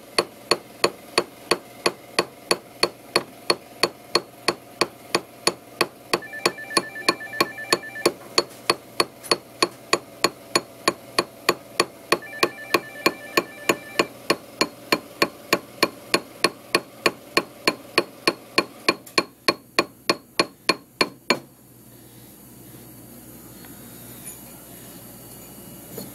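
Small jeweler's hammer striking a ring on a steel ring mandrel in quick, even taps, about three a second, each blow dimpling the ring's surface for a hammered finish. The tapping stops about 21 seconds in.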